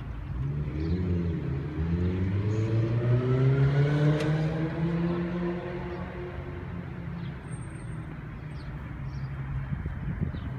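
A car drives past; its engine note climbs over the first few seconds, is loudest about four seconds in, then fades away.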